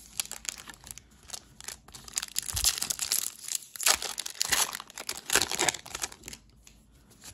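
Foil Pokémon Silver Tempest booster pack taken from the box and torn open by hand: a few light rustles at first, then from about two seconds in several seconds of dense crinkling and tearing of the foil wrapper as the cards are pulled out.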